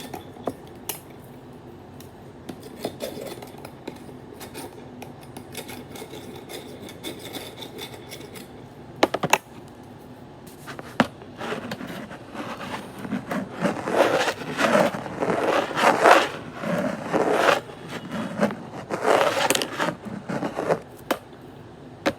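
Small objects being handled: scattered clicks and light scraping, then a run of louder, repeated scraping strokes through the second half.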